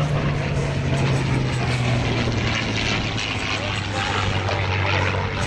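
WWII piston-engined propeller aircraft flying past, a loud engine drone that falls in pitch as it goes by and then holds lower.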